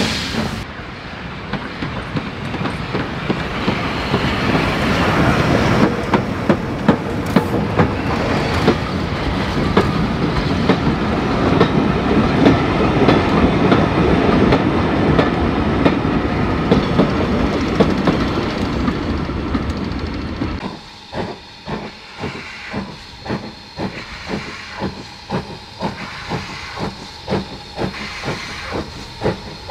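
Steam train passing: the locomotive goes by with steam hiss and exhaust, loudest around the middle. About two-thirds of the way through the sound drops suddenly, and the coaches roll past with a regular clickety-clack of wheels over rail joints, about two clicks a second.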